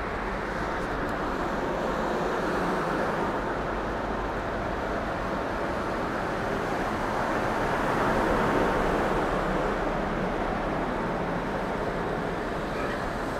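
A steady rumbling noise with a faint hum running through it, swelling a little about eight seconds in.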